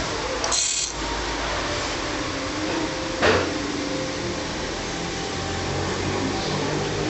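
Steady whirr of a small electric fan on the workbench, with a couple of handling clicks, the sharpest about three seconds in, and a low mains hum from a pistol-grip soldering gun building near the end.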